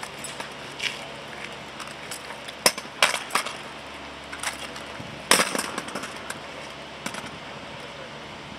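Exhibition drill rifles being caught, slapped and brought down onto asphalt during a platoon's rifle routine: a scattering of sharp clacks and knocks, the loudest about a third of the way in and just past the middle, over a steady outdoor background.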